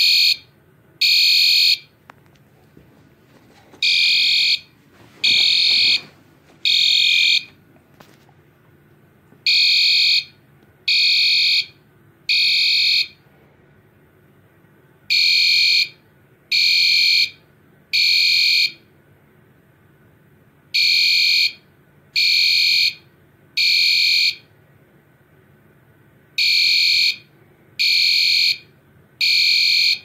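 System Sensor SpectrAlert Advance P2R fire-alarm horn sounding loud, high-pitched beeps in groups of three with a pause between groups, the temporal Code 3 evacuation pattern.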